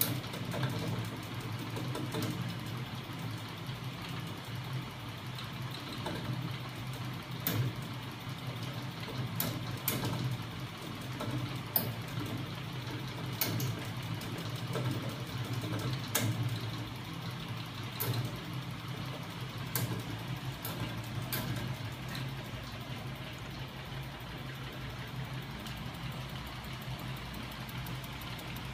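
Homemade magnetic 'ornithopter engine' rig running, driven by its battery-powered electric motor: a steady mechanical hum with sharp clicks every second or two as the swinging arm and rollers work. The clicks thin out near the end.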